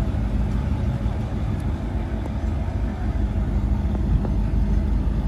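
Car engines running and rumbling at a car meet, a steady low drone with no sharp events.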